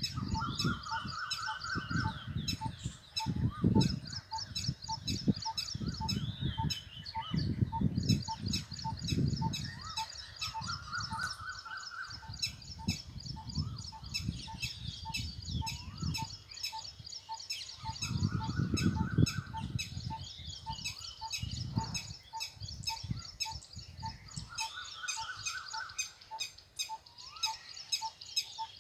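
Parrots calling: a rising call, about a second and a half long, repeats roughly every seven or eight seconds over dense high chirping. A steady ticking call sounds about three times a second, with gusts of low rumbling.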